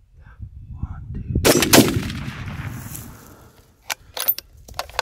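A single gunshot about a second and a half in: a sharp crack, a second crack right after it, then a rolling echo that dies away. A few short sharp clicks follow near the end.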